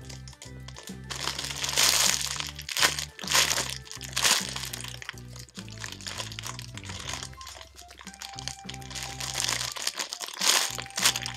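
Clear plastic wrapping around a foam squishy toy crinkling several times as the wrapped toy is squeezed and turned in the hands, over background music with a steady bass line.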